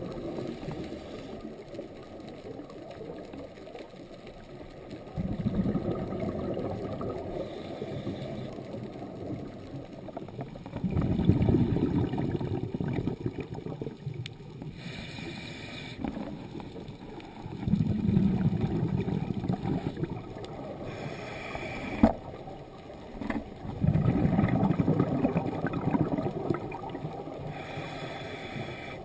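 A scuba diver breathing through a regulator, heard underwater. A short hiss on each inhalation is followed by a longer low rumble of exhaled bubbles, about every six seconds, and there is a single sharp click about 22 seconds in.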